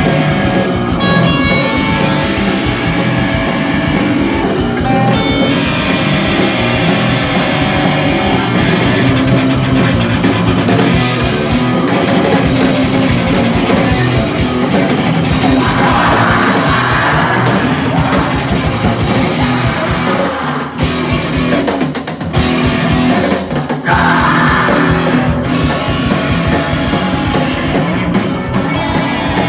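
Live heavy rock band playing loud: electric guitar, bass guitar and drum kit, with shouted vocals at times. The band drops out briefly a few times about two-thirds of the way through, then comes back in full.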